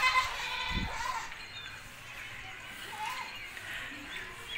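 A goat bleating several times, short wavering calls, with a dull thump a little under a second in.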